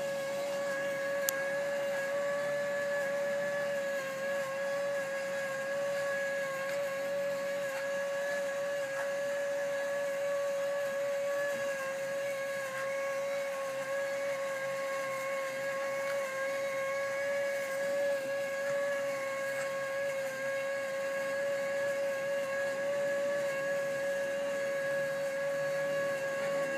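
Bubble machine's small electric motor and fan running with a steady whine at one unchanging pitch, with a single short click about a second in.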